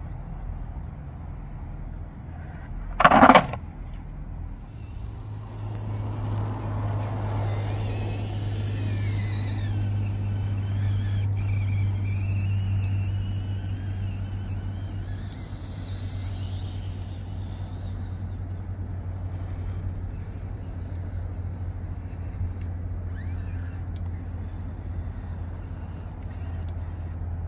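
Small electric motor and gears of a 1:18-scale RC crawler whining as it drives, the pitch rising and falling with the throttle, over a steady low hum. There is a sharp, loud knock about three seconds in.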